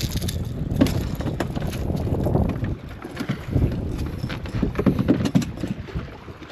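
Wind rumbling and buffeting on the microphone aboard a small boat, rising and falling, with scattered knocks and clicks.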